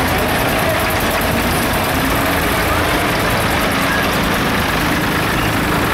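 Engines of several vintage tractors, a white David Brown among them, running at low revs as they drive slowly past one after another: a steady, even rumble.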